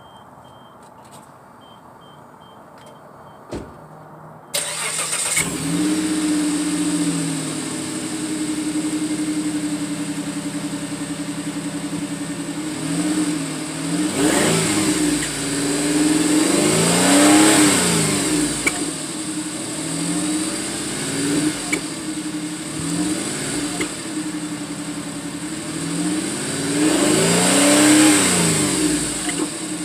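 Suzuki Grand Vitara's engine starting about four seconds in, idling, then revved several times, each rev rising and falling in pitch. A steady high whistle runs alongside the engine and grows louder on the biggest revs, with a turbo exhaust whistle fitted in the exhaust tip.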